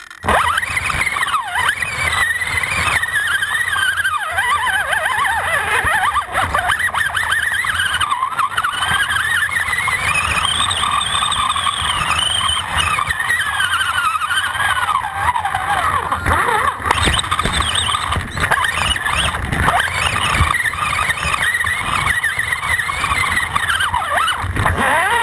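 Axial AX10 rock crawler's electric drivetrain, heard from a camera mounted on its chassis: the motor and gears whine continuously, the pitch rising and falling as the throttle changes while it crawls over rock.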